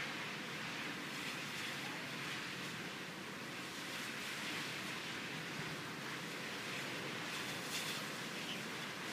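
Strong, steady wind blowing outside an open window: a constant, even rushing noise with no distinct gusts.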